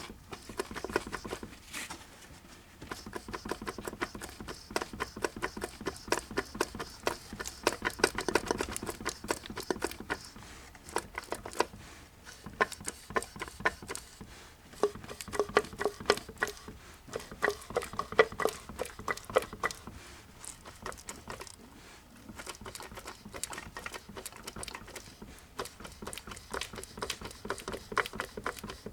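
Mercedes-Benz OM616 four-cylinder diesel engine being turned over by hand, giving runs of sharp clicks and knocks with short pauses between. The knocking is piston slap from the No. 3 piston, one side of whose skirt below the gudgeon pin has broken away.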